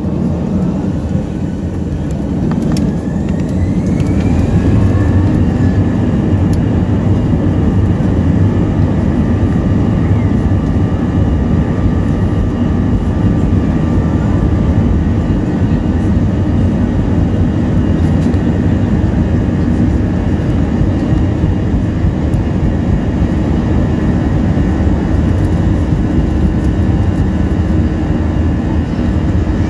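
Airliner engines heard from inside the cabin: a whine rises about three seconds in as they spool up to take-off power, then a loud, steady rumble of the take-off roll.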